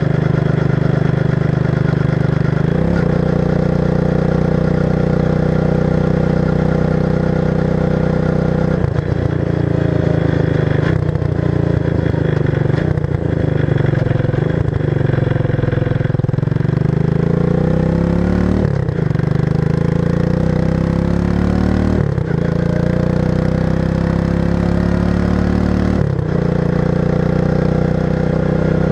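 1994 Suzuki King Quad 300 ATV's single-cylinder four-stroke engine running loud through its stock muffler, which has had the baffles removed and the inside modified. It holds steady at first, then its pitch climbs and drops off sharply several times before settling steady again near the end.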